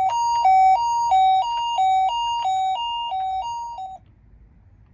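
Toy minicar ambulance's electronic two-tone siren in the Japanese hi-lo 'pee-po' pattern, switching between a higher and a lower tone about three times a second. It stops abruptly about a second before the end.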